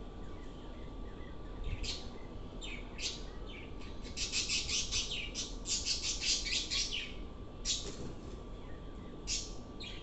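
Budgerigars chirping: a few short high calls at first, then a quick run of chirps through the middle, and a few scattered calls near the end.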